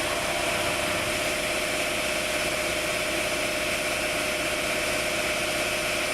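Junker Grindor Allround CNC cylindrical grinding machine running: a steady, unchanging machine sound with a constant whine over a hiss.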